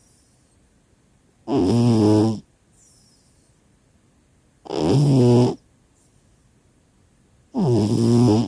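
A cat snoring: three loud, drawn-out snores about three seconds apart, each just under a second long and dipping in pitch as it starts, with faint breathing between.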